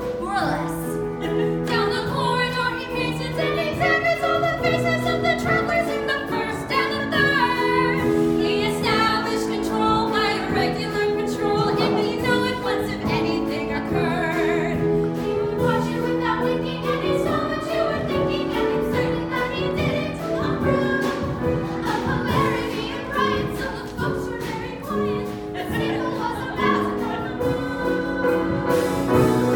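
A musical-theatre number sung by a group of young voices over accompaniment, with held notes and changing melodic lines throughout.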